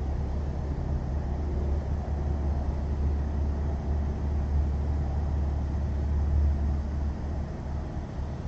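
Low, steady outdoor rumble with uneven loudness and no speech.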